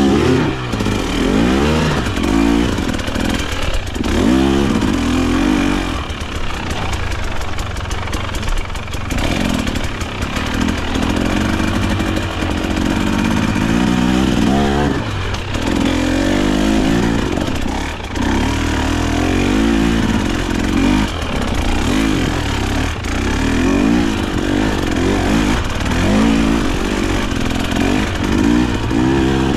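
KTM off-road motorcycle engine revving in repeated surges, rising and falling every second or two, as the bike is worked in a low gear up a steep trail.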